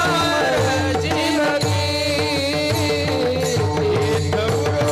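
Men singing a Marathi devotional kirtan song together into microphones, with small brass hand cymbals (taal) clashing in a steady rhythm and a held drone beneath.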